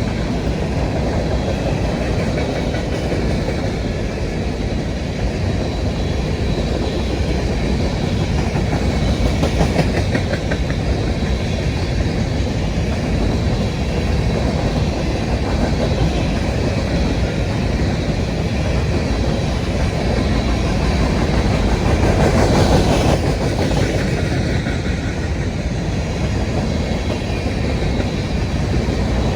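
Railroad cars rolling past, a steady rumble of steel wheels on the rails that swells briefly about three quarters of the way through.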